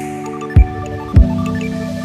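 Background music: held pitched notes and chords, with two deep drum beats a little over half a second apart.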